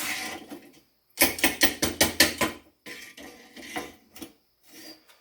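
Metal parts being handled and set down: a short scrape, then a quick run of clinks and knocks, followed by a few quieter clatters.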